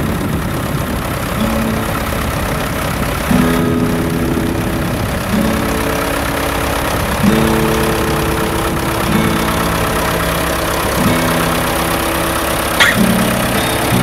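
Tractor engine running at a steady idle-like rumble, with slow music of held chords that change about every two seconds.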